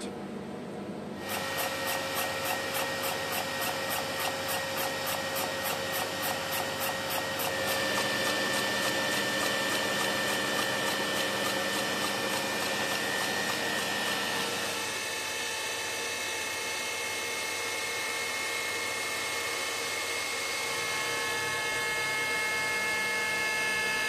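Maho milling machine starting up about a second in, its spindle running with a steady gear whine while a milling cutter machines a plate. A rapid regular ticking from the cut runs through the first several seconds, and the whine shifts in pitch twice later on.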